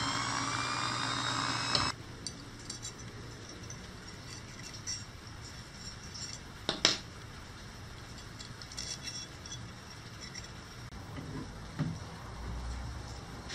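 A drill press running, cut off abruptly about two seconds in. After that come light metallic clinks of steel drill bits being handled against a steel knife tang, with one sharper, ringing clink about seven seconds in.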